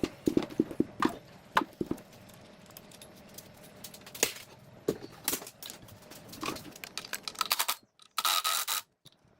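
Irregular clinks, taps and scrapes of metal parts being handled during work on an old generator, with a short burst of noise near the end.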